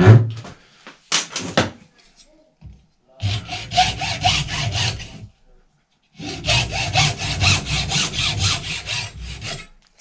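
Hand hacksaw cutting a short length off a part clamped in a bench vise: two runs of quick back-and-forth strokes, the second longer, with a short break between. A few clicks and knocks come first as the piece is clamped.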